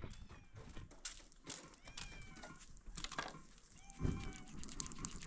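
Short, high-pitched animal cries, repeated several times, over scattered clicks and rustling.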